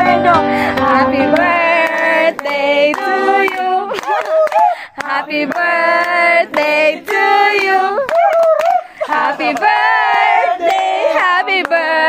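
Background music: a song with a female singing voice holding long, wavering notes.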